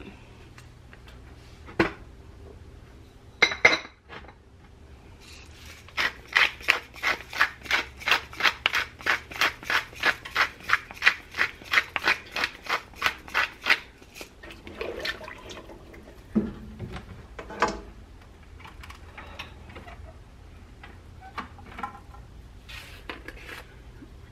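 Hand-twisted pepper mill grinding pepper into a soup pot: a steady run of grinding strokes, about three a second, for some eight seconds. A few separate clunks of utensils follow.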